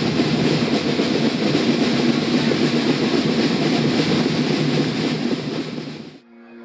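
Loud, steady rumbling noise that fades out about six seconds in, as a held musical chord begins.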